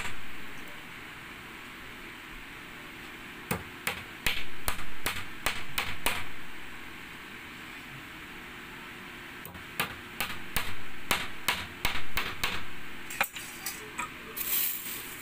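Claw hammer driving steel nails into a wooden strip: three runs of quick, sharp blows separated by pauses of a few seconds.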